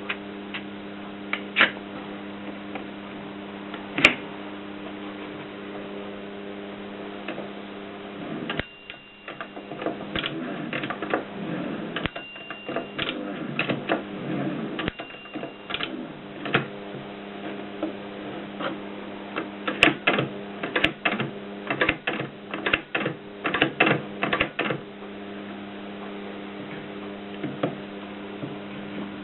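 AEG Mignon 4 index typewriter being worked, its strokes sounding as sharp, irregular clicks. There are two busy runs of clicks, one starting about a third of the way in and one past the middle, with three brief high tones in the first run. A steady mains hum runs underneath.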